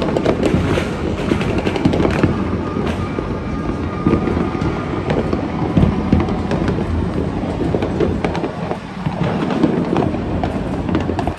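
Fireworks going off in a loud, dense barrage of overlapping bangs and crackles, with no let-up.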